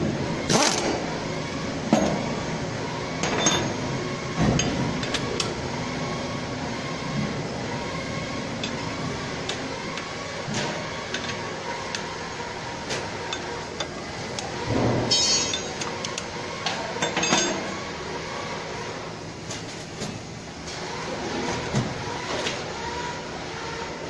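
Irregular metal clinks and knocks of hand tools against steel as the bolts holding a machine's stationary blade are fitted and tightened, over a steady background hum. The sharpest knock comes right at the start, with a cluster of quick clinks about halfway through.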